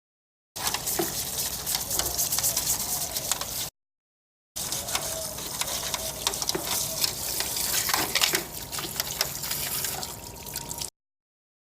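Running water splashing over a plastic air-conditioner part as it is rinsed clean, with a few small knocks of handling. It comes in two stretches, about three seconds and then about six, each starting and stopping abruptly at an edit.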